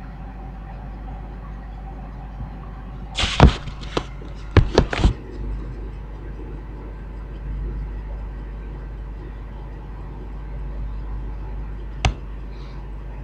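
VW 2.0 common-rail TDI diesel engine at a raised idle during a standstill DPF regeneration, a steady low rumble. A quick run of sharp clicks and knocks comes about three to five seconds in, and one more click near the end.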